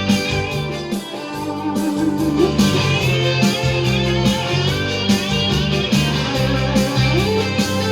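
Instrumental music: a guitar-led break with a steady bass line and a melody line over it.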